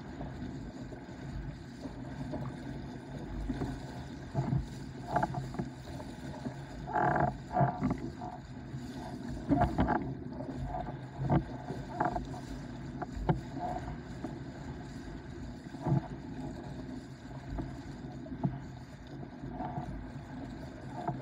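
Starboard S-Type windsurf board sailing over chop: a steady rush of water and wind, broken by irregular thuds as the hull slaps the waves, with a cluster of harder hits around the middle.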